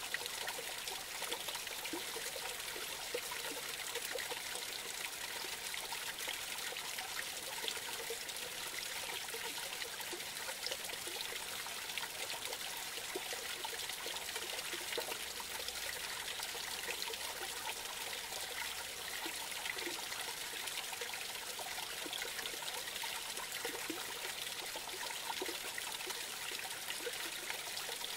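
Small forest creek spilling over a low step into a pool: a steady trickling and splashing of running water, with small scattered gurgles.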